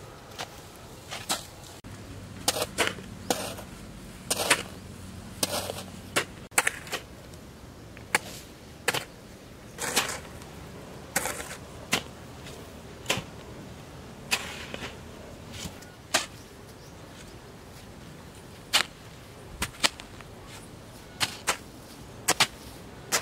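Hoe blade chopping into loose red soil and dragging it, a short thud or scrape about once a second, sometimes two in quick succession, as earth is pulled up around a sapling.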